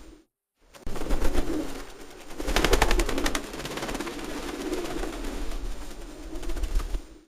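Pigeons cooing in low, wavering notes, with a burst of rapid clattering about two and a half seconds in. The sound drops out completely for about half a second near the start.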